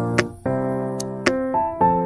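Background music: held keyboard chords that change about every second, with a few sharp clicks over them.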